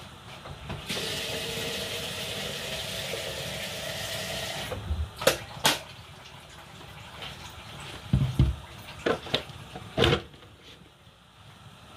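Water running from a tap for about four seconds, starting and stopping abruptly. It is followed by a few sharp knocks and low thuds of kitchen things being handled.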